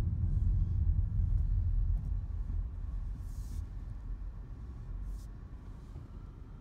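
Low road and engine rumble inside a car's cabin, fading steadily as the car slows to a stop, with two brief soft swishes about three and five seconds in.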